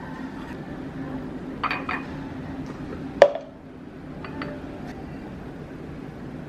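Dishes and utensils clinking while food is being prepared: two light clinks about two seconds in, a sharp clink just after three seconds, then a few small taps, over a steady low hum.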